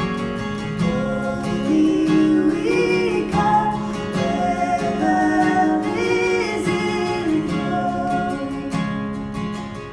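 Worship song: acoustic guitar strumming, with a voice singing a melody over it from about a second in until near the end.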